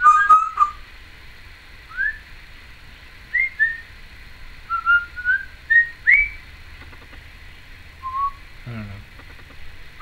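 Timneh African grey parrot whistling a string of short, separate notes, several sliding quickly upward in pitch, with pauses between them. The loudest whistle comes right at the start.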